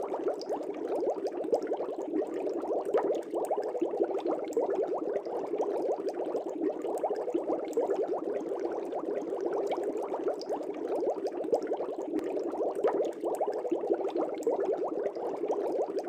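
Air bubbles rising through aquarium water, a continuous dense bubbling of small pops and gurgles at an even level.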